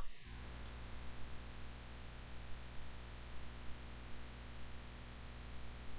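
Faint, steady electrical hum with a low hiss underneath: the recording's microphone noise floor between spoken instructions.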